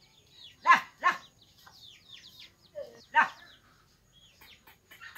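A hen clucks loudly three times, twice in quick succession about a second in and once again about three seconds in, over a constant patter of short, high, falling peeps from chicks.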